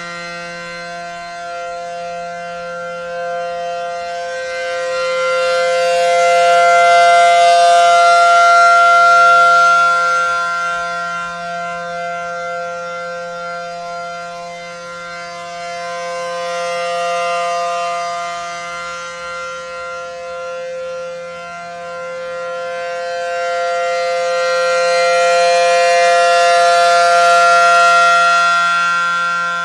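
ACA Allertor-125 15-horsepower rotating outdoor warning siren sounding the steady alert signal. It holds a constant pitch and grows louder and fainter as the rotating horn sweeps past, loudest twice.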